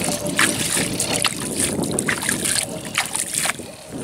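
Water splashing in short, irregular bursts as a hooked river carp is brought in, with wind rumbling on the microphone.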